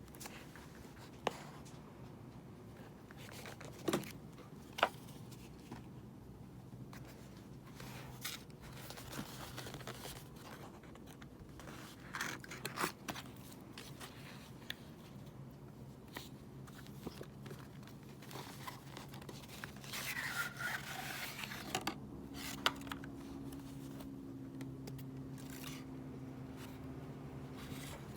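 Hands unpacking an album package: paper and plastic scraping, crinkling and tearing, with scattered sharp taps and clicks.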